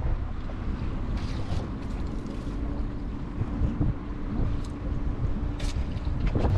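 Wind buffeting the microphone on a small boat at sea, over the steady low running of an outboard motor held in reverse to keep position against the drift. A few brief hissing sounds come through about a second in and again near the end.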